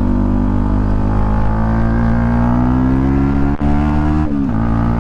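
Yamaha YZF-R125's single-cylinder four-stroke engine running under way, its revs climbing slowly, dipping briefly about three and a half seconds in, then dropping in pitch a little after four seconds.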